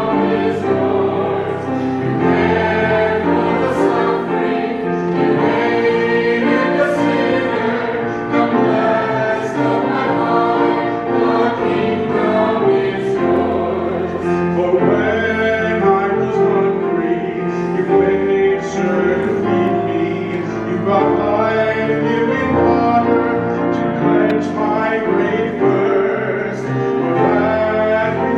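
Choir and congregation singing a hymn in church, with a steady organ-like accompaniment holding low bass notes that change every couple of seconds.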